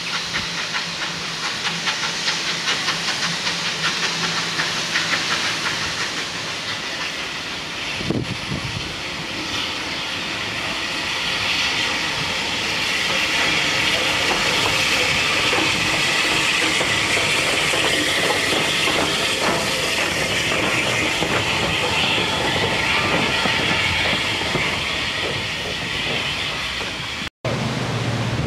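Steam locomotives at a station platform: steam hissing steadily from BR Standard Class 7 70000 Britannia while a second steam locomotive runs in alongside. The hiss is loud and grows stronger about twelve seconds in, then cuts out abruptly near the end.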